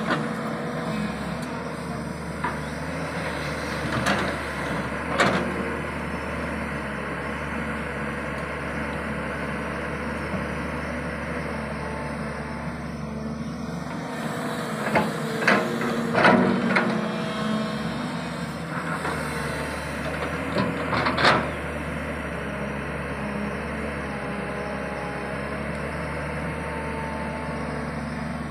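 Diesel engine and hydraulics of a JCB JS 215 tracked excavator working steadily while loading a tipper truck. Sharp clunks come as earth and clods drop into the truck's steel body: a couple about four and five seconds in, a cluster about midway, and one more some seconds later.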